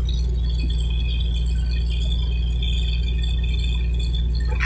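Truck-mounted borewell drilling rig running steadily: a deep, even drone with thin high whining tones above it, and a brief clatter near the end.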